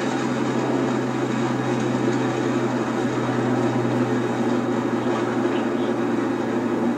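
Steady rumbling roar of a Delta IV Heavy rocket's RS-68 engines just after liftoff, heard through the launch broadcast audio.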